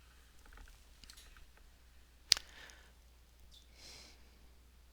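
Tarot cards being handled on a table: faint small clicks, then one sharp tap a little over two seconds in, and a soft rustle near the end.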